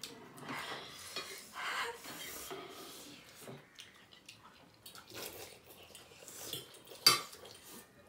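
Forks and chopsticks clinking and scraping against plates and a bowl as spicy ramen noodles are eaten, with one sharper clatter about seven seconds in.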